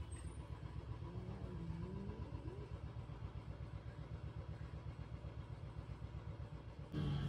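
Steady low engine rumble with a fast even pulse, like a vehicle idling. A faint, wavering low cat growl rises and falls between about one and three seconds in, and a louder cat voice starts just before the end.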